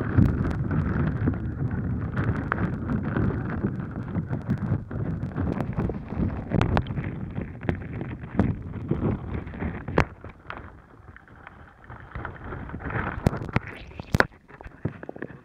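Water sloshing and churning in a bag around a waterproof camera as the bag is thrown and tumbled, heard from inside, with many sharp knocks and clicks against the camera housing. The sloshing eases off in the last few seconds.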